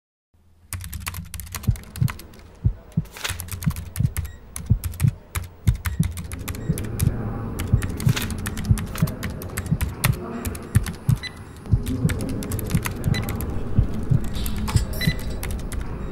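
Rapid, irregular clicking of typing on a computer keyboard, over low thuds. A steady low drone fills in under it from about six seconds in.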